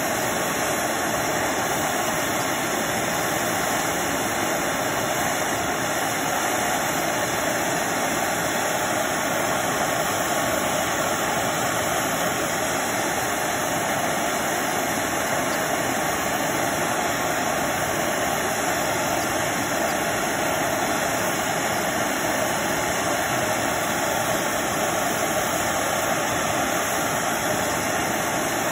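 MAP gas hand torch burning with a steady, even hiss, its flame heating a small O-1 tool-steel blade up to hardening heat for a quench.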